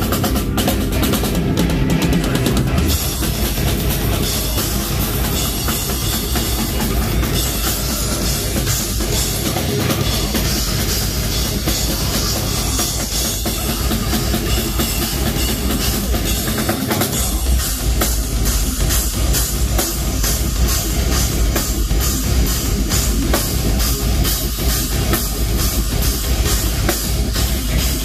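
A heavy metal band playing live at full volume: distorted guitars over a drum kit, with rapid, closely spaced drum strikes through the second half.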